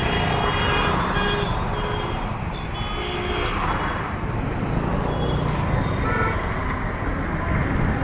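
Congested road traffic: a steady rumble of engines and tyres, with a few short vehicle horn toots in the first second, around the middle and about six seconds in.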